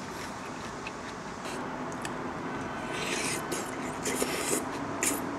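A person eating muk-sabal, acorn jelly and vegetables in cold broth, with chopsticks: short slurps of the broth and food, a few of them about three, four and five seconds in, over a steady background hiss.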